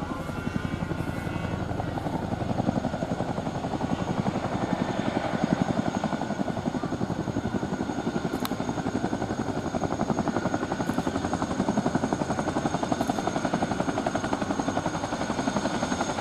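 Boeing CH-47F Chinook on the ground with its two tandem rotors turning, a rapid even beat of the blades under a steady high turbine whine from its twin turboshaft engines.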